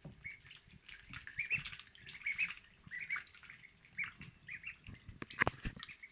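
Duckling peeping, repeated short high chirps in quick runs, over splashing and wing-flapping in bath water, with a louder splash about five and a half seconds in.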